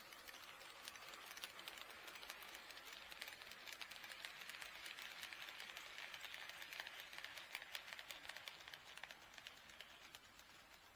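HO-scale KATO D51 model steam locomotive running on KATO Unitrack, its wheels giving a fast run of small clicks over the rail joints above a light mechanism hiss. It grows louder toward the middle and fades near the end as it passes by.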